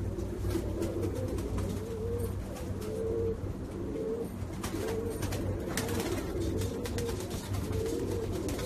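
Domestic pigeon cooing over and over, a low warbling coo repeated about once a second. A steady low hum and a few faint clicks run behind it.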